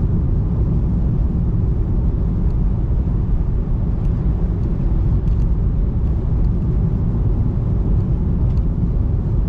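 Steady low rumble of a Tesla Model 3 driving on a snowy road, mostly tyre and road noise with no engine note, with a few faint ticks.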